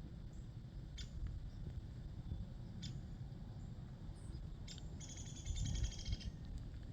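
Short high chirps from a small bird, three of them about two seconds apart, then a rapid chattering trill of about a second near the end, over a steady low rumble.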